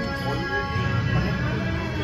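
Music playing, with many held tones over a dense low accompaniment.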